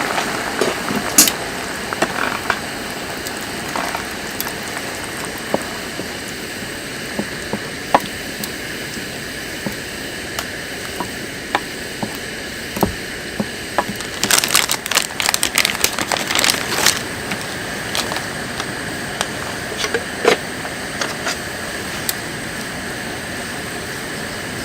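Scattered light clicks and taps over a steady hiss, with a quick run of clicks a little past the middle.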